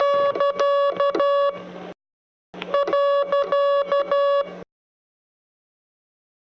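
Morse code sent on a key as a single-pitch tone, in two runs of dots and dashes about half a second apart: the period, di-dah-di-dah-di-dah. A faint low hum sits under the tone while it is keyed.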